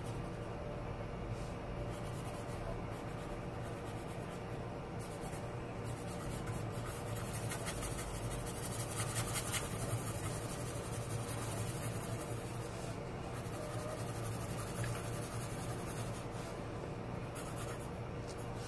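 Graphite pencil shading on drawing paper: a steady run of quick back-and-forth strokes scratching on the sheet, over a low steady hum.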